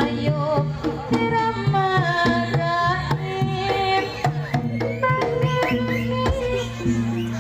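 Javanese jaranan music: hand drums (kendang) playing a busy rhythmic pattern under a wavering, gliding melody line.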